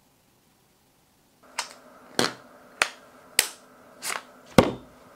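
Gloved hands handling a coin's cardboard presentation box: a series of about six sharp clicks and knocks, roughly one every half second, starting about a second and a half in.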